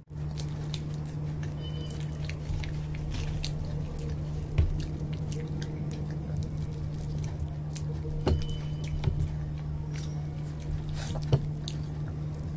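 Close-up eating sounds: soft squishing and chewing as people eat yogurt-topped golgappa and chole scooped up with paratha, with light ticks of fingers and a spoon on glass and steel dishes. Three sharper clicks stand out, about four, eight and eleven seconds in, over a steady low hum.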